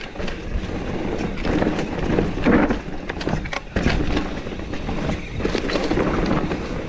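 Santa Cruz Megatower mountain bike rolling over a rough, stony trail: tyres crunching on stones and gravel, with a steady rattle and frequent knocks from the bike. There is wind noise on the microphone throughout.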